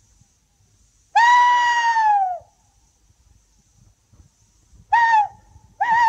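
A man imitating the hoot of a male tawny owl: a long hoot that falls away at its end, a short note about five seconds in, then a second long note that begins to waver.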